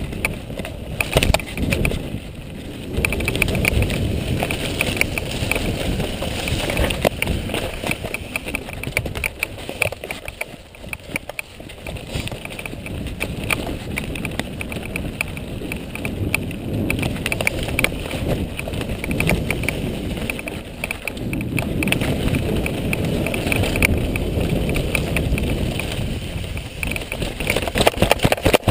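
Mountain bike riding fast down dirt singletrack: tyres on dirt, with rattles and knocks from the bike over bumps and wind rumbling on the microphone.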